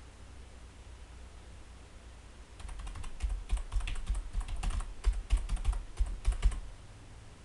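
Computer keyboard typing: a quick run of keystrokes starting about two and a half seconds in and lasting about four seconds.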